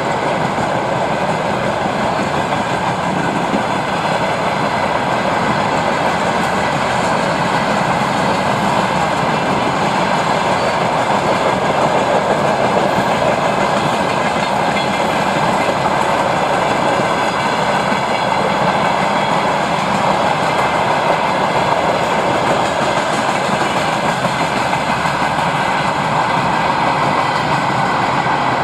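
A freight train's open gondola wagons rolling steadily past, steel wheels running on the rails.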